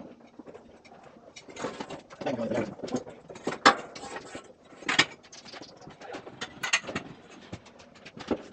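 Irregular knocks and clanks of a length of metal electrical conduit being handled and set into a hand conduit bender, the sharpest a little under four seconds and about five seconds in.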